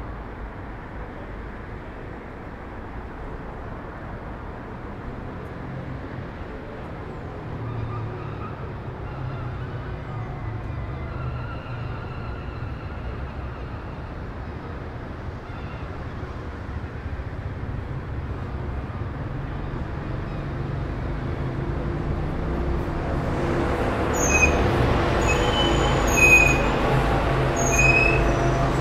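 City traffic: a steady low rumble of passing vehicles that slowly grows louder. Near the end come several short high-pitched squeals and a few clicks.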